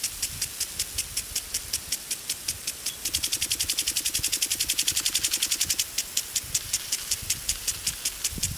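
Impact sprinkler on a garden hose spraying water, ticking about four to five times a second. From about three seconds to six seconds the ticks come much faster, in a quick rattle as the sprinkler swings back, then it returns to steady ticking.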